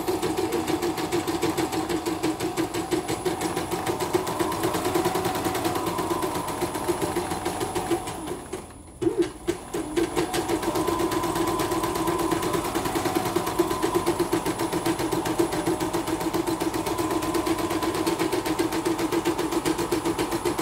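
CNY portable embroidery machine stitching a design at speed, a fast, even run of needle strokes, freshly fitted with a new motor and power supply and running smoothly. About eight seconds in it briefly stops, there are a couple of knocks, and then it stitches on.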